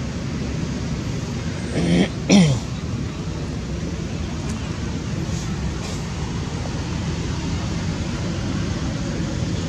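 Two short, low vocal sounds about half a second apart, the second sliding down in pitch, over a steady low background rumble.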